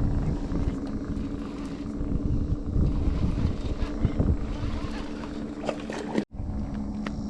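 Boat outboard motor running steadily with a low hum and rumble of the hull on the water, broken off sharply once about six seconds in.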